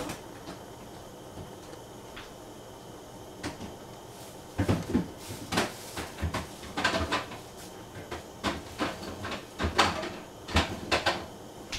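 A run of sharp knocks and clacks from kitchen handling, like a cupboard or refrigerator door and containers being moved, starting about four seconds in after a few seconds of faint steady background.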